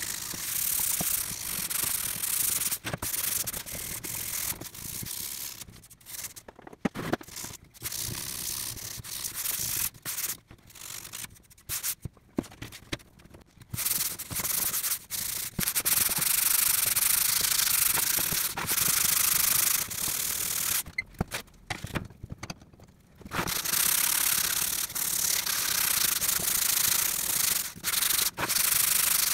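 Rust-pitted steel crosscut saw blade being scrubbed by hand with an abrasive block: steady scratchy back-and-forth rubbing, broken by a few short pauses, with the most even and sustained stretches in the second half.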